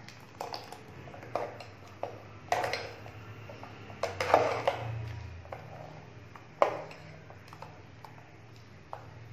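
A steel ladle clinking and scraping against a steel pot while stirring watery curry gravy, with irregular sharp knocks, the loudest about four seconds in and again near seven seconds.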